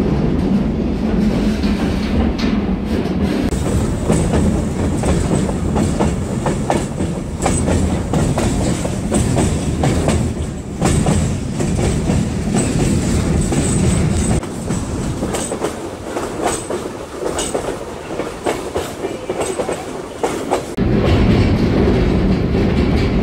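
A moving train's railcar wheels on the track: a steady rumble with irregular clickety-clack knocks and a faint, thin high whine through the middle. The rumble eases for several seconds and returns at full level near the end.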